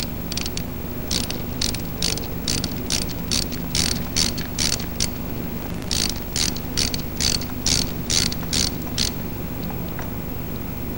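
Mechanical clicking from hand work at a Caterpillar 3508 diesel's fuel setting cover: a rapid series of sharp ratchet-like clicks, about two to three a second, with a short pause about five seconds in, stopping near the end, over a steady low hum.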